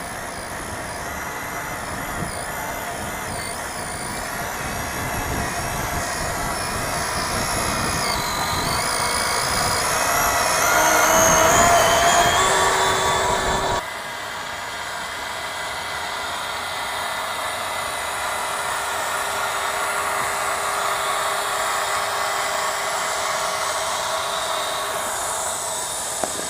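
Homemade steel RC logging truck running, its motor and gears whining and shifting in pitch as it drives. The sound builds to its loudest a little before halfway, then cuts abruptly to a steadier, quieter run.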